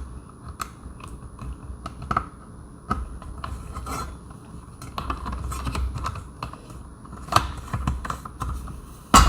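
Screws being driven by hand into a doorbell door mount, with handling of the small parts: irregular clicks, rubs and scrapes, and a louder knock near the end.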